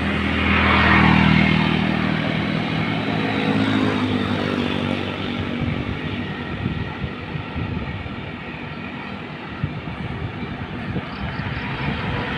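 Road traffic: motor vehicle engines over steady road and wind noise, with a vehicle passing loudly about a second in and another engine swelling in near the end.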